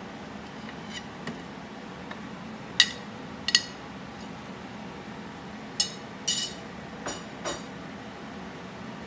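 A metal spoon clinking and scraping against a ceramic plate as banana pieces are pushed off it into a pot: about half a dozen sharp, ringing clinks, the first about three seconds in and the last near the end, over a steady low hum.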